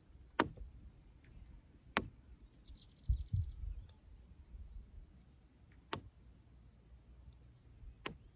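Four sharp clicks, about two seconds apart, over faint low rumbling, with a short burst of rapid high ticking about three seconds in.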